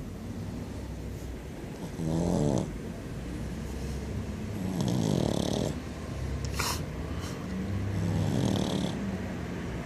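Pug snoring: three snores about three seconds apart, with a brief sharp click just after the second.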